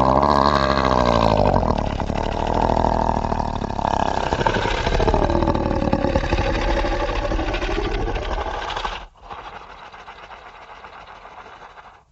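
Monster growl sound effect: a long, loud, rough growl whose pitch sweeps down and back up midway, cutting off about nine seconds in and leaving a quieter low rumbling tail.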